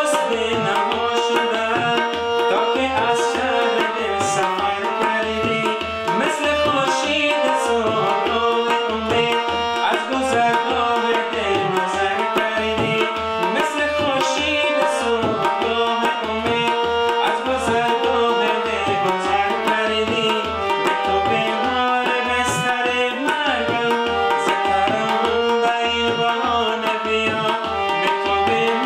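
Harmonium playing a melody with tabla accompaniment in a steady rhythm, and a man singing along.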